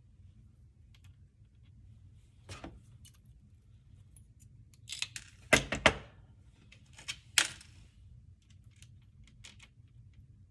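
A few short clicks and clatters of small objects being handled, the loudest cluster about halfway through, over a low steady hum.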